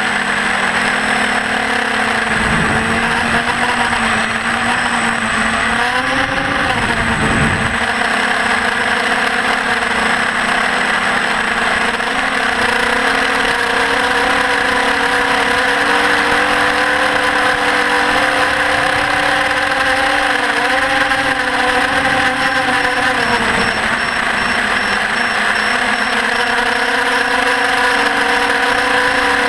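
Electric motor and propeller of a Parrot Disco fixed-wing FPV drone running steadily in flight over a rush of air noise. The pitch swells and drops twice, about six seconds in and again near twenty-two seconds, as the throttle changes.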